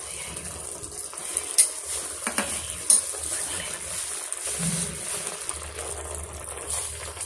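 A metal slotted spoon stirs curd into mushroom masala sizzling in a steel kadai, scraping the pan over a steady sizzle, with a few sharp clinks of metal on metal.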